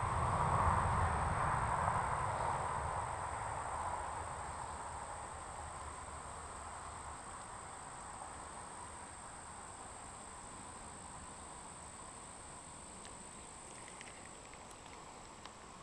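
Crickets trilling in one steady high-pitched tone, over a soft rushing noise that fades away over the first few seconds. A few faint clicks from the spinning reel being handled near the end.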